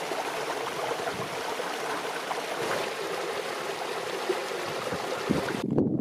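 A mountain stream running over rocks in small cascades: a steady rushing and splashing of water. Just before the end it cuts off and footsteps on a gravel path begin.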